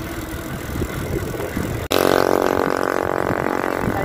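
Wind and road rumble on the microphone while riding a bicycle. About two seconds in, an abrupt cut gives way to a steady, evenly pitched motor drone.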